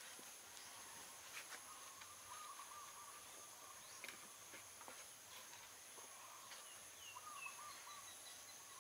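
Faint outdoor ambience near silence: a steady high-pitched insect drone, with a faint warbling call, a few short falling chirps about seven seconds in, and scattered light clicks.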